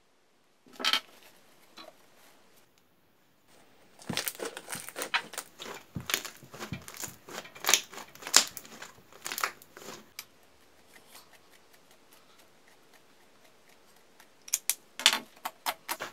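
Homemade glue-and-activator slime being kneaded and squeezed by hand, giving quick runs of sharp clicks and crackles about four seconds in and again near the end, with one sharp click about a second in.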